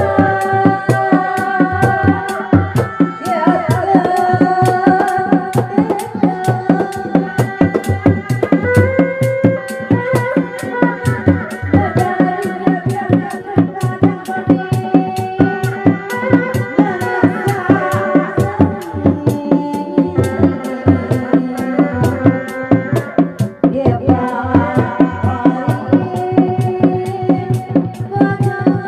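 Sundanese reak music: a set of four dogdog drums beating a fast, steady rhythm, with a held, wavering melody line above the drums.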